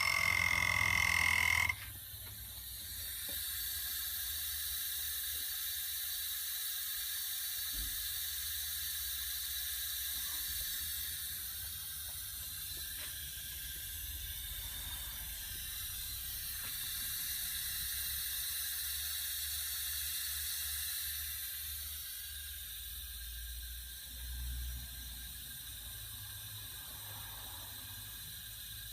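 Steady high-pitched hiss from a Mercedes-Benz R230 SL500, over a low rumble. A loud pitched tone sounds at the start and cuts off suddenly after about two seconds.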